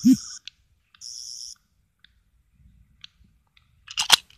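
Character Options 9th/10th Doctor sonic screwdriver toy playing its high, warbling electronic sonic sound in short bursts, twice in the first second and a half, worked by a button modified to sit on the slider. A sharp click from handling the toy near the end.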